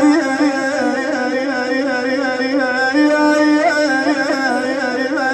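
Male voice singing a long wordless, richly ornamented melisma in a Shia elegy (latmiyya) recitation, the pitch wavering and turning over a steady low tone.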